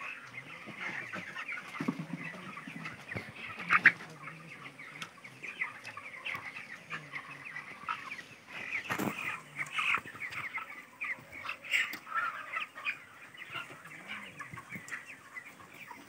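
A large flock of 24-day-old broiler chickens peeping and clucking, a constant dense chatter of short high calls. A sharp knock stands out about four seconds in, and another comes about nine seconds in.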